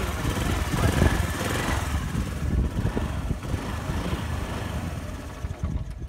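Honda Dio scooter's small single-cylinder engine idling, started with the newly wired kill switch turned on; it grows gradually quieter toward the end.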